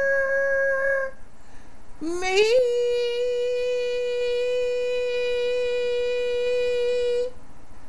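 Unaccompanied solo voice singing a comic song, holding a long note on 'for' that ends about a second in, then sliding up into a long steady note on 'me' that lasts about five seconds.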